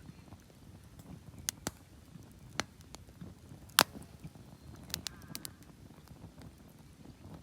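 Wood campfire crackling: scattered sharp pops, roughly one a second, over a faint low rumble.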